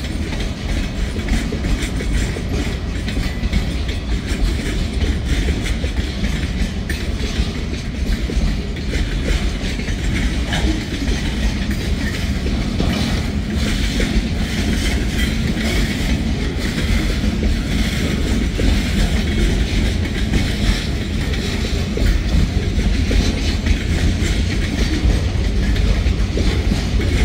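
A loaded freight train's cars rolling past at close range: a steady rumble with the wheels clacking over the rail joints.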